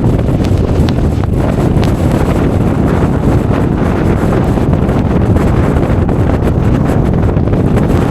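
Strong wind buffeting the microphone, a loud, steady low rumble with no let-up.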